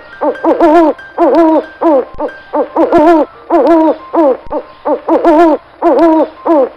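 Repeated hooting animal calls in short groups of two or three notes, about eight groups, the last note of each group bending downward in pitch.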